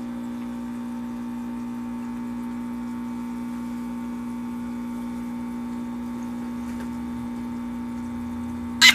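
Steady electrical hum of an aquarium pump, one unchanging low tone with fainter tones above it. A loud rapid rattle breaks in right at the very end.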